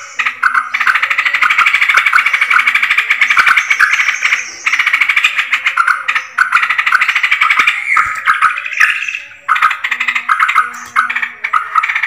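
Yellow-vented bulbuls (trucukan) chattering and calling without pause, a dense run of short bubbly notes broken by a few brief gaps, the kind of recording played as a lure call to draw trucukan in.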